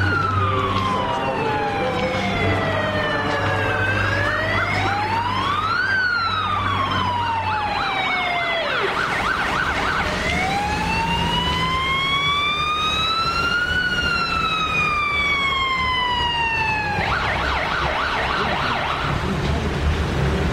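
Electronic vehicle siren sounding a slow wail that rises and falls over several seconds, broken twice by a couple of seconds of rapid warbling yelp.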